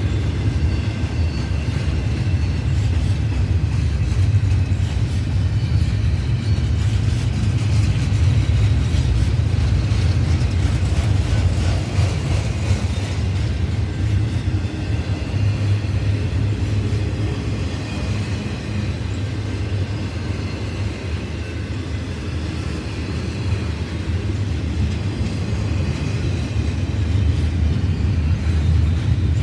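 Double-stack intermodal well cars rolling past on the rails: a steady low rumble of wheels and trucks, with faint thin high squeals above it.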